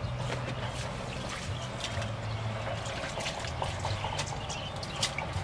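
Water splashing and trickling in a stainless steel bowl as hands wash leafy greens in it, with small irregular splashes throughout, over a low hum.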